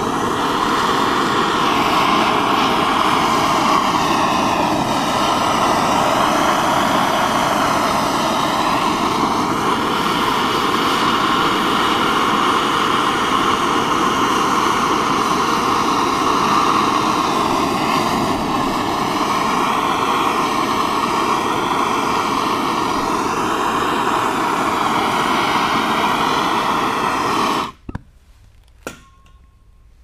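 Gas torch flame hissing steadily as it heats a steel piece held in a vise, then shut off suddenly near the end, followed by a couple of faint clicks.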